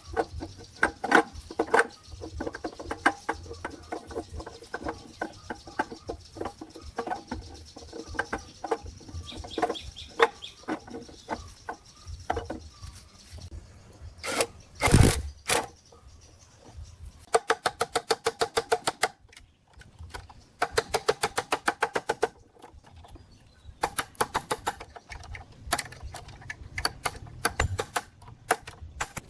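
Hand work on metal parts: irregular knocks and clicks, one loud short burst about halfway through, then two runs of rapid, evenly spaced clicking like a ratchet being worked.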